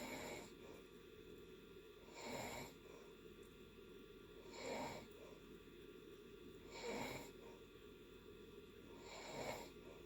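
Snoring in deep sleep: five snores at an even, unhurried pace, one about every two and a half seconds, each a short rasping swell.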